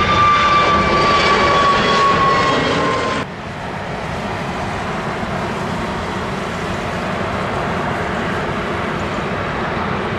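Twin-engine jet airliner climbing out at takeoff thrust, a loud engine roar with a whine that slides slowly down in pitch. About three seconds in it cuts off suddenly to a steadier, slightly quieter rumble of a Boeing 767 on final approach.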